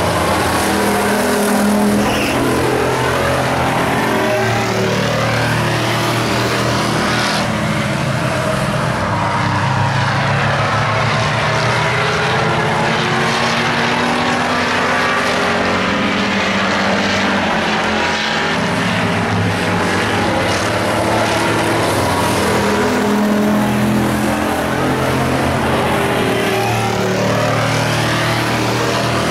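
Engines of several stock pickup race trucks running hard around an oval track, their pitch rising and falling as the trucks pass and lift for the corners.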